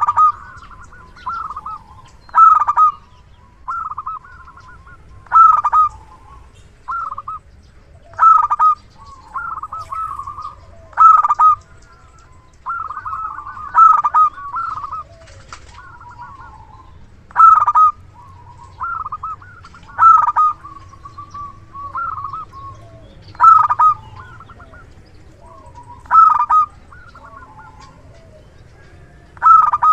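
Big-voiced local zebra dove (perkutut) cooing: loud phrases of quick staccato coos come about every three seconds, with softer coos between them.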